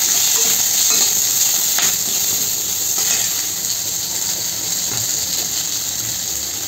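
Quartered onions and a dried red chilli sizzling in hot oil in a kadhai. A flat metal spatula stirs them, scraping and tapping against the pan a few times.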